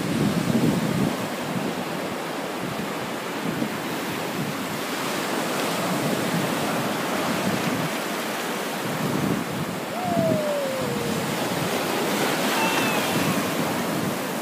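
Ocean surf breaking and washing up the sand in a steady rush, with wind buffeting the microphone. About ten seconds in, a short tone slides downward over the surf.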